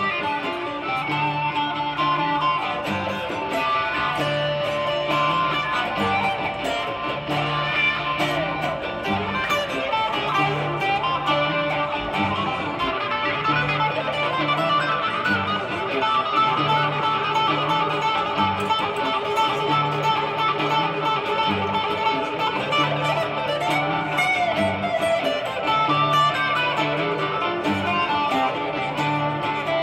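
Acoustic guitar picked in an instrumental passage, a melodic lead line ringing over a low bass note that keeps recurring.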